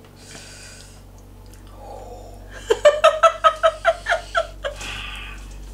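A person laughing: a quick run of high-pitched ha-ha pulses, about five a second, starting about halfway through and lasting around two seconds.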